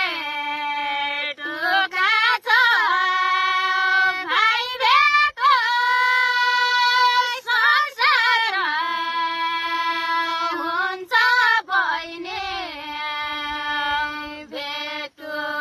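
A girl singing a Nepali folk song unaccompanied, holding long drawn-out notes that waver and bend between short breaths.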